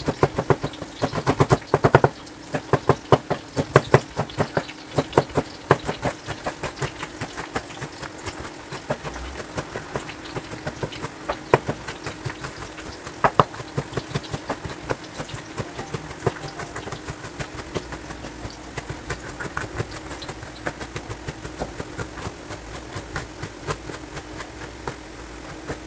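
Rapid, irregular sharp knocks or taps, several a second, over a steady low hum.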